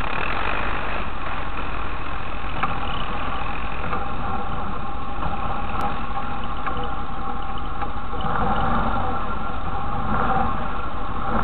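ATV engine running steadily at low throttle; about eight seconds in its note gets stronger as the throttle is opened.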